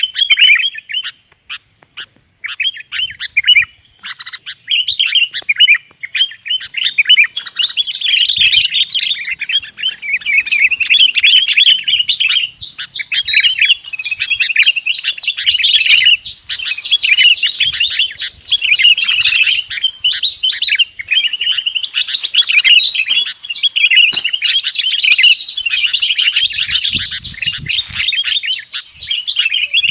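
Sooty-headed bulbul (kutilang) calls: a lure-call recording for attracting the birds. Scattered chirps at first, building after a few seconds into a dense, continuous chatter of many overlapping rapid chirps.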